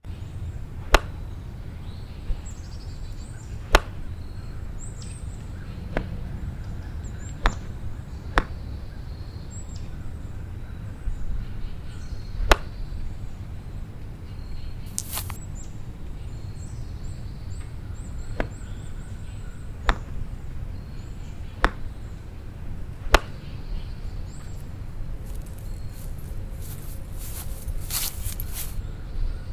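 About a dozen sharp single knocks at uneven intervals over a steady low rumble, with small birds chirping faintly and high in the background. A short hissing burst comes about halfway through, and several more come near the end.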